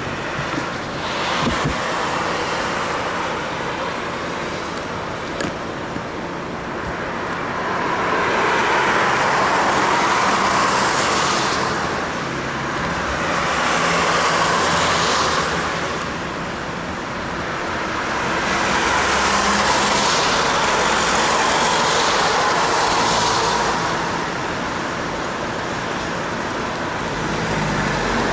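Road traffic at an intersection: several cars pass one after another, each a swell of tyre and engine noise that rises and then fades away.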